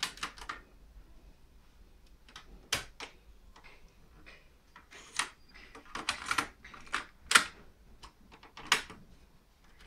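Plastic clicks and clunks of a Gradiente Avanti AT-51 double cassette deck being worked by hand: the stop key pressed, then cassette doors opened and shut and cassettes taken out and put in. The clicks come irregularly, with a busier run of them in the second half.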